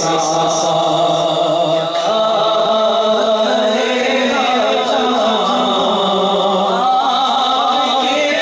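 A man's solo voice chanting a devotional naat into a handheld microphone, in long held notes that waver up and down.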